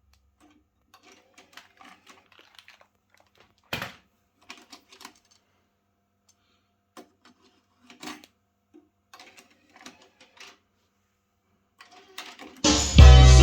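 Faint, scattered clicks and pops of vinyl surface noise in the silent groove between two songs, with one louder pop about four seconds in. Music starts again near the end.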